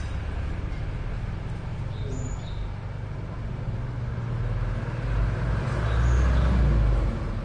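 A steady low engine-like rumble that swells louder about five seconds in, with a few short bird chirps over it.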